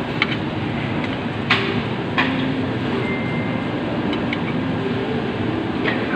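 Steady restaurant background noise, with several sharp clinks of utensils or dishes; the loudest comes about one and a half seconds in.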